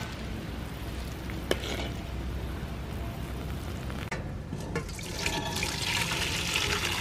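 Sugar syrup bubbling as it cooks to caramel colouring in a wok, with one sharp tick about a second and a half in. After a break about four seconds in, the finished thick caramel syrup is poured from the wok into a stainless steel pot, a liquid gush that grows louder toward the end.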